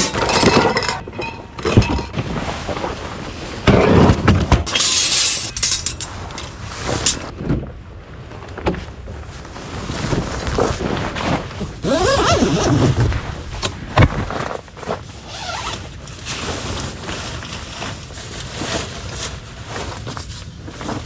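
Camping gear being handled and set out: a run of knocks and clattering, with sharper thumps about two, four and fourteen seconds in.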